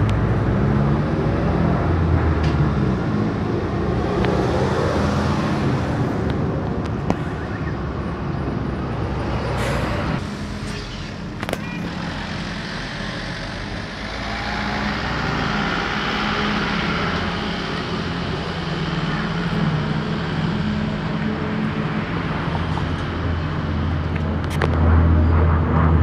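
Steady low drone of four-engine turboprop military transport planes flying overhead, the propeller hum holding an even pitch with a slight bend in pitch near the start as they pass. A couple of brief sharp clicks come around ten and eleven seconds in.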